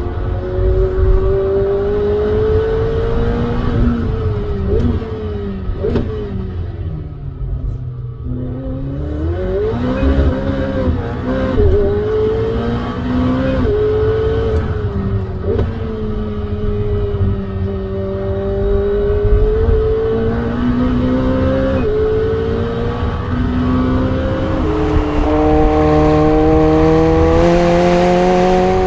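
McLaren 765LT's twin-turbo 4.0-litre V8 driven hard on track: the engine note climbs and drops with the gear changes, falls away to a low pitch under braking about seven seconds in, then pulls back up, ending in a long rising climb through the revs near the end.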